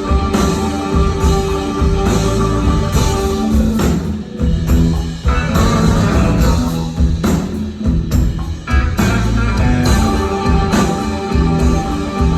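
Rock band playing an instrumental passage, with guitars over bass and drums. The low end thins out briefly about a third of the way in.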